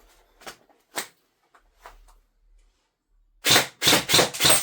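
G&G SGR 556 airsoft electric gun (AEG) test-firing: a few faint clicks, then, about three and a half seconds in, four loud single shots in quick succession, roughly three a second.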